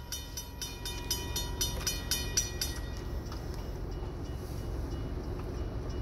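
Railroad crossing bell ringing rapidly, about four strokes a second, while the crossing gates come down; it stops about three seconds in, leaving the low steady rumble of the approaching train.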